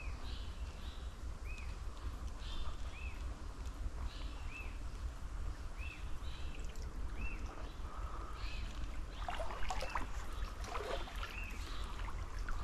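Flowing canal water making a steady low rush while a bird repeats a short high chirp that rises and falls, over and over. A few scratchy noises come about nine seconds in.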